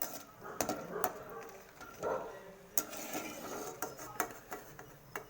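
A metal utensil stirring food in a frying pan, clinking and knocking against the pan at irregular moments.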